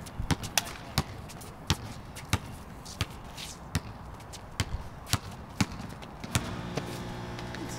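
A basketball bouncing on a gym floor: a string of sharp, irregular thumps. About six seconds in, a steady low buzz starts and holds, which sounds like a hockey buzzer.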